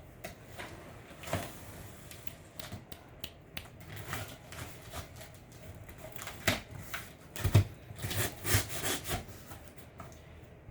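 A cardboard box being handled and opened: scattered scrapes, rubs and clicks, with a few louder knocks a little past the middle.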